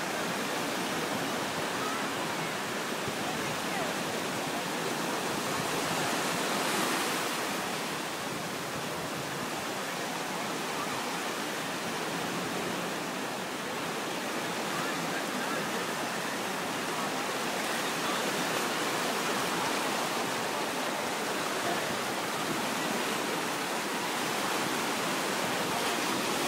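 Small surf breaking and washing up a sandy beach, a steady rush of noise that swells a little now and then.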